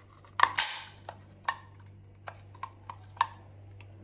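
Irregular sharp clicks and taps from a carbon monoxide detector's test button being pressed and the unit handled. The loudest comes about half a second in, with a brief scrape. No alarm beep sounds: the detector is not responding to the test.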